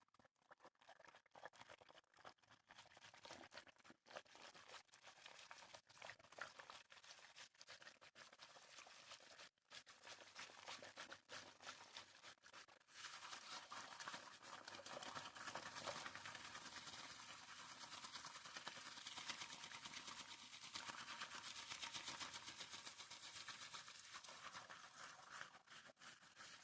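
Faint, close-miked ASMR water sounds: quick crackly water noises with scattered clicks, turning into a denser, steadier wash about halfway through.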